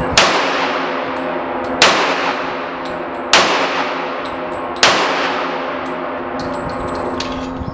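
Four handgun shots about a second and a half apart, each followed by a long ringing echo. The sound cuts off abruptly near the end.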